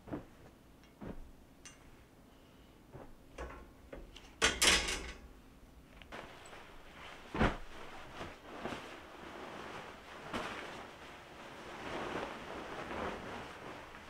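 Laundry and bedding being handled: a few small clicks and knocks, a loud rustle about four and a half seconds in, a sharp thump about seven and a half seconds in, then steady cloth rustling as a duvet is moved about.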